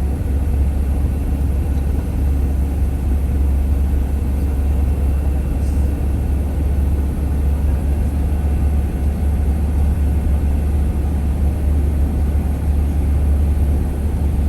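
Steady low rumble of a vehicle driving, heard from inside the cabin: engine and road noise with no change in pace.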